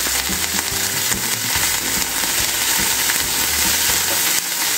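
Fresh spinach and parsley leaves sizzling in hot oil and garlic in a frying pan, a steady frying hiss.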